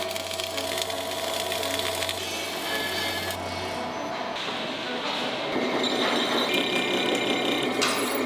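Arc welding on a steel tiller shaft: the welding arc crackles and hisses steadily over a low hum, with the crackle changing character about halfway through.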